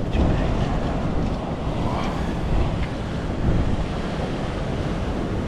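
Wind buffeting the microphone over a steady wash of surf against jetty rocks.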